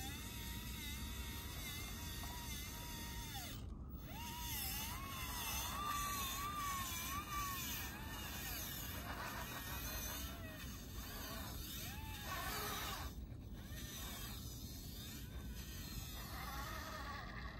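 Axial SCX10 Pro RC crawler's Fusion Pro 2300kv brushless motor whining, its pitch rising and falling in short swells as the throttle is fed in and eased off on the climb, over a low steady rumble.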